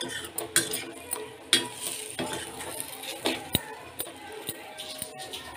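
A metal spatula scrapes and clinks against a stainless steel kadai as spice-coated potato sticks are stirred, giving a handful of irregular sharp clinks.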